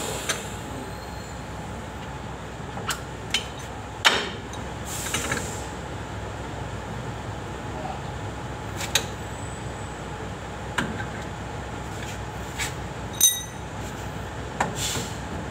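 Metal hand tools clinking and knocking against drum brake parts, about ten sharp, irregularly spaced strikes, the loudest about four seconds in and another near the end that rings briefly like struck metal. A steady background noise runs underneath.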